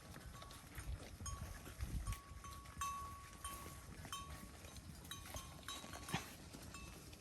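Cattle chewing hay: irregular crunching clicks and low thumps. A thin, steady high tone sounds on and off through it.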